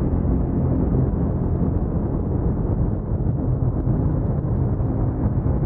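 A steady, deep rumbling drone that holds evenly throughout, like a soundtrack bed under footage.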